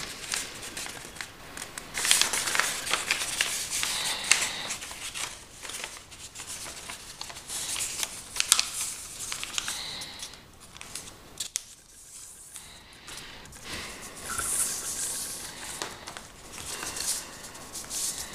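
A sheet of lined notebook paper rustling and crackling as hands fold it into a paper airplane, with fingers pressing and sliding along the creases. The rustling comes in irregular spells with a few sharp snaps, and goes quieter for a moment about twelve seconds in.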